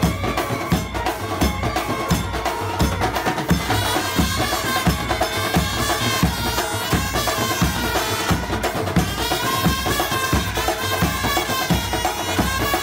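Music with a steady drum beat; a wavering melody comes in about four seconds in.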